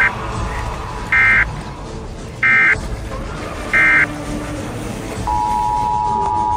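Siren Head's siren sound effect: three short, loud electronic alarm blasts about a second and a half apart, then a steady high tone begins near the end.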